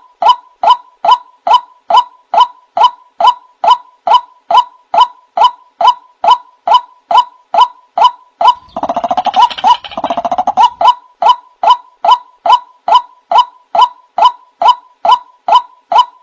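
Male white-breasted waterhen (burung wak-wak) calling: a steady series of short hooked notes, about two a second, with a harsher run of rapid calls about nine seconds in.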